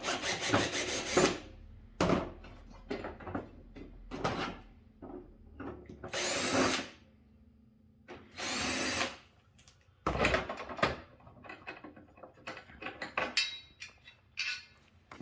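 Cordless drill with a Phillips bit run in short bursts to back out the screws of the TV's old mounting bracket. Two longer whirs, each under a second, come about six and nine seconds in, with shorter bursts near the start and small clicks and knocks of screws and handling between.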